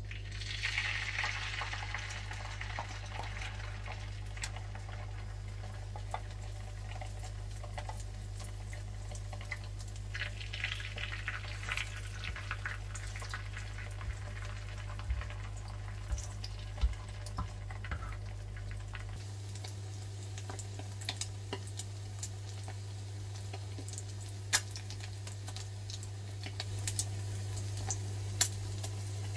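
Whitebait fritter batter frying in hot oil in a frying pan. It sizzles loudest as batter goes in at the start and again about ten seconds in, then fries steadily with scattered spitting pops. A steady low hum runs underneath.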